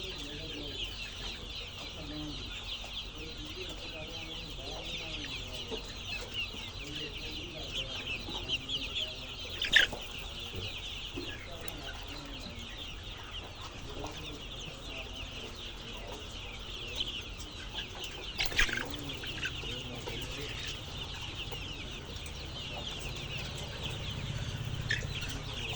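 A flock of chicks peeping continuously, a dense chorus of many short high cheeps, with fainter lower calls beneath. Two sharp knocks cut through, about ten seconds in and again about eight seconds later.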